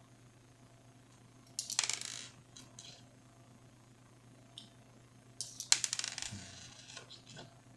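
Small metal parts clinking and rattling in two short bursts, about one and a half seconds in and again after five seconds, with a few single ticks between: a screwdriver and screws working on a laptop graphics card's metal heatsink during reassembly.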